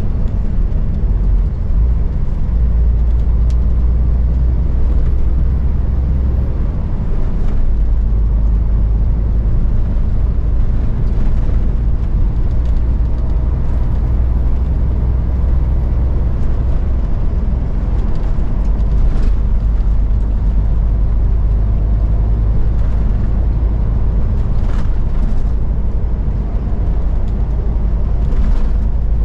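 Inside a MAN truck's cab while driving: a steady low drone of diesel engine and tyre noise. A few faint clicks and rattles sound through it.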